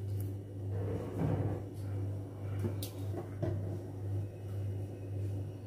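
Silicone spatula scraping soft semolina pudding out of a metal kadhai, with a few light clicks as it knocks against the pan and the tin mould, over a steady low hum.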